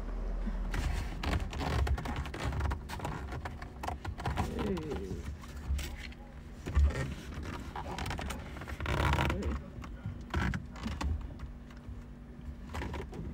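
A steering wheel cover being stretched and pushed onto a car's steering wheel: irregular scraping, rubbing and knocking, with a faint voice now and then.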